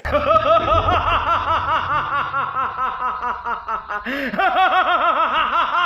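Loud, hearty laughter: a fast, even run of rising-and-falling "ha-ha-ha" sounds, about four or five a second, that starts abruptly and keeps going without a break.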